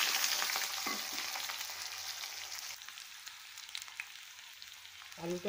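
Cut potatoes sizzling as they fry in hot mustard oil in a kadai, the sizzle loudest at first and slowly easing off, while a metal spatula stirs them.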